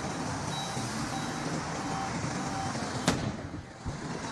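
Steady road traffic noise with vehicles running. A single sharp click about three seconds in is followed by a brief drop in the noise.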